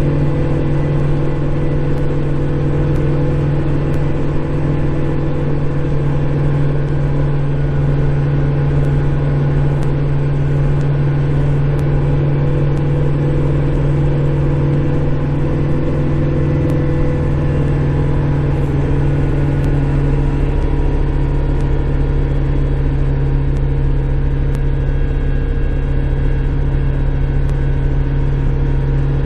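Kubota Grand L5740 tractor's four-cylinder diesel engine running steadily under load, heard from inside the closed cab while it drives a snowblower. Its note shifts slightly about twenty seconds in.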